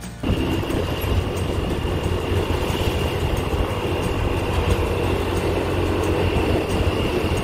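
Motor scooter riding along a road, recorded from on the bike: a steady rush of wind and road noise over the engine's low hum, with a thin steady high whine above it.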